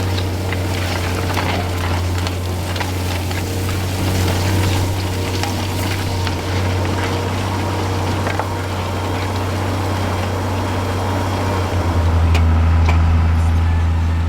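Ford TW-25's six-cylinder turbo diesel pulling a seven-furrow plough under load at about 2,000 rpm, a steady low engine drone with a crackling hiss over it. About twelve seconds in, the engine note deepens and grows louder.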